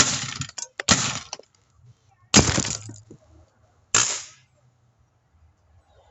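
PCP air rifle firing four shots, each a sharp crack with a short hissing tail, spaced one to one and a half seconds apart. They are fired to drain the rifle's air tank.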